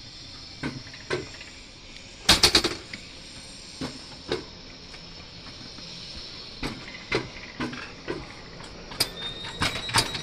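Alpine coaster cart running down its metal track, clacking and rattling irregularly, with a quick run of four loud clacks a couple of seconds in and more near the end. A thin steady whine sets in near the end.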